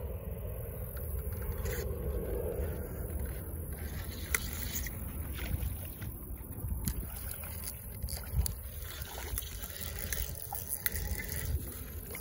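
Wind buffeting the microphone as a steady low rumble, with scattered small clicks and rustles of handling.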